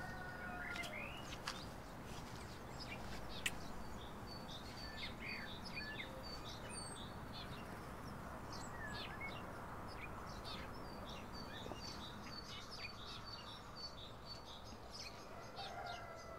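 Small birds chirping over a steady background hiss, with many short high chirps through the whole stretch. A short lower drawn-out call trails off at the very start and another comes near the end.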